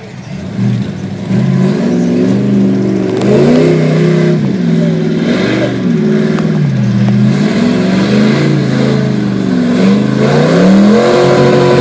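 Lifted pickup truck's engine revving hard in a mud pit, its pitch climbing and falling again and again as the driver works the throttle. It grows louder about a second in.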